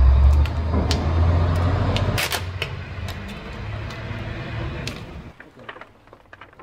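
Sheet of vinyl wrap film rustling and crinkling as it is pulled and smoothed by hand over a car hood, with a few sharp clicks. A heavy low rumble under it for the first two seconds.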